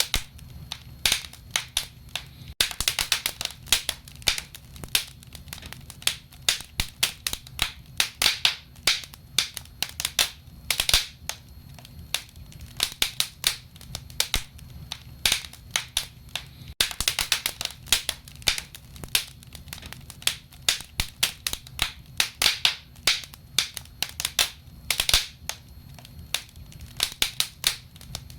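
Wood fire in a fireplace crackling: frequent sharp, irregular pops and snaps over a low steady rumble of the flames.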